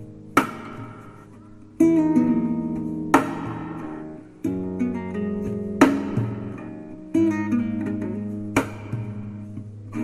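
Background instrumental music: an acoustic guitar playing slow sustained chords, with a sharp strummed accent about every two and a half seconds.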